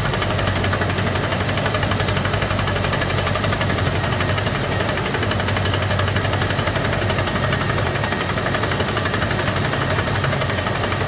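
Truck-mounted hydraulic drilling machine running: a steady, rapid mechanical hammering over the low drone of its engine.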